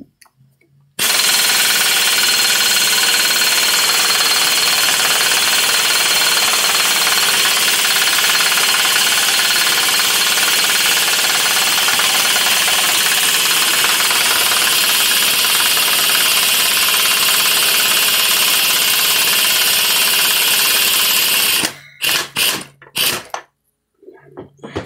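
Pneumatic impact wrench hammering without a break for about twenty seconds on a large socket, working a stubborn screw-in ball joint out of a heavy-duty Chrysler control arm. It stops, then gives a few short bursts near the end.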